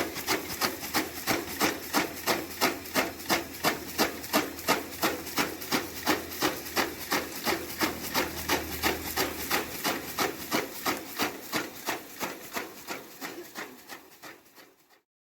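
Electric chaff cutter driven by a 1 hp motor, its flywheel blades chopping with regular sharp strikes about four a second over a low motor hum. About ten seconds in the hum drops away and the strikes fade and slow until they stop near the end: the machine is coasting down after being switched off.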